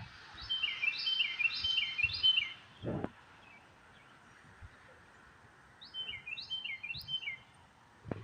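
A songbird singing two bouts of a quickly repeated phrase, each phrase a high note sliding downward, four or so times in a row. A soft low thump falls between the bouts.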